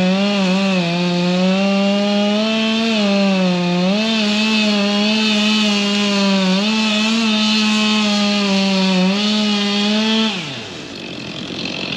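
Gas chainsaw cutting wood at full throttle, its engine note holding high with small dips as the chain loads up in the cut. About ten seconds in the throttle is let off and the note slides down and drops away.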